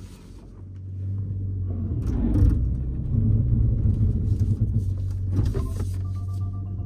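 Vehicle rumbling low and steady as it works over rough off-road ground, with a couple of short knocks. The rumble builds about a second in.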